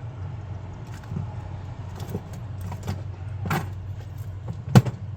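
Metal tools clinking and knocking against each other and the washer's metal parts in a few scattered clicks, with one louder sharp knock near the end, over a steady low hum.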